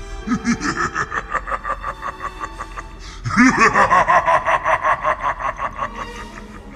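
A demon's long, cackling laugh: a fast run of 'ha' pulses, about five a second, that gets louder about three seconds in, with background music underneath.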